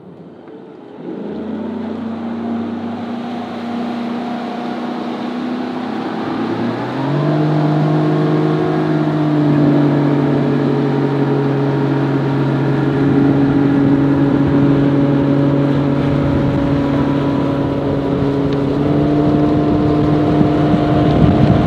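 Bass boat's large outboard motor running under way. Its pitch climbs sharply about seven seconds in as it is throttled up, holds steady, and rises a little again near the end.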